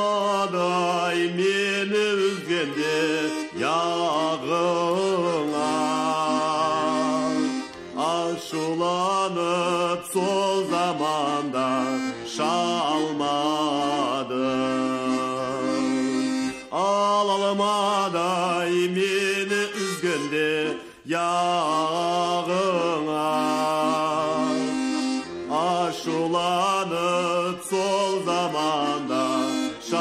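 Traditional folk song: a wavering, ornamented melody line sung in phrases of about four seconds with brief breaks between them, over a steady sustained accompaniment.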